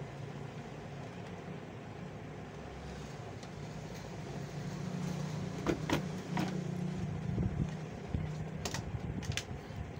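A low, steady engine hum that grows louder through the middle and then eases, with a handful of sharp clicks and taps about halfway through and again near the end.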